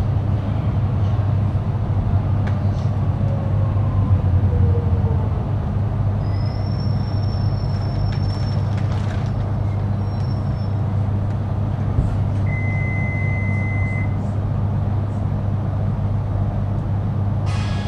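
Inside an electric suburban train carriage: a steady low hum of the train's machinery. A thin high whine comes in about six seconds in, and a shorter steady tone a few seconds later. A brief rattle sounds near the end.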